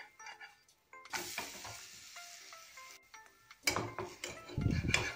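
Metal spatula working under an eggless besan omelette to flip it in a hot nonstick frying pan. From about a second in there is a sizzle as the batter meets the oiled pan, and near the end the spatula knocks and scrapes loudly against the pan.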